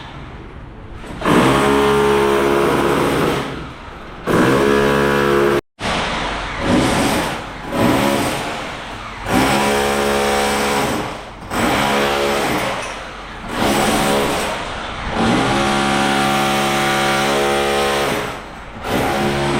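Electric power tool motor running in repeated bursts of one to three seconds, starting and stopping over and over, typical of demolition work stripping out a room.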